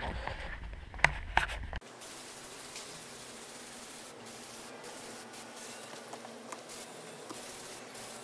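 Aerosol spray-paint can hissing steadily as paint is sprayed, starting about two seconds in. Before it, a few knocks and clicks.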